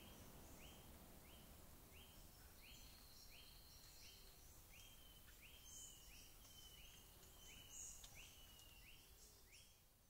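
Faint natural forest ambience under a low hiss: a small animal repeats a short, upward-hooked call about every two-thirds of a second, with scattered higher chirps over it.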